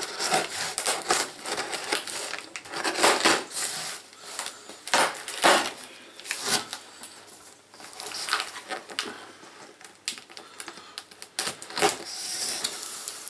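A cardboard shipping box being opened by hand: the packing tape is cut and the flaps pulled back, with irregular scraping, rustling and clicking of the cardboard.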